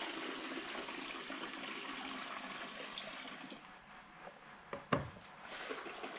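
Water poured from a plastic bucket into a plastic basin, a steady splashing pour that stops about three and a half seconds in. A single sharp knock about five seconds in, as the bucket is set down on the table.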